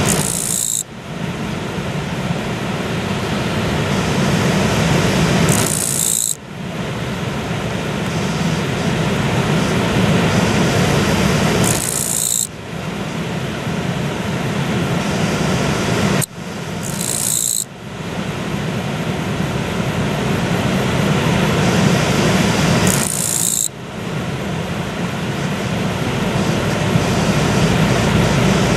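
An insect, which the uploader takes for a Japanese katydid (kirigirisu), calling in short high-pitched bursts, five times, about every five to six seconds, over the steady rush of a river.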